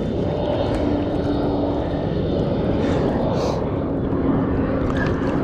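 Steady low rumble of wind on the microphone, with a distant engine hum that comes and goes underneath.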